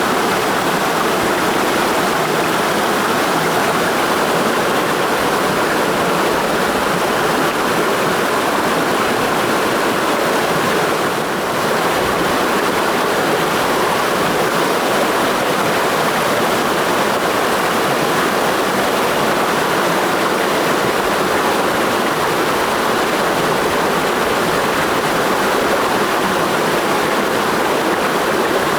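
Mountain stream flowing in a gorge: a steady, even rush of water.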